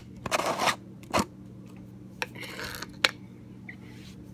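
Plastic lid being twisted off a plastic jar: crunchy scraping and rustling in the first second and again partway through, with two sharp clicks, one about a second in and one about three seconds in.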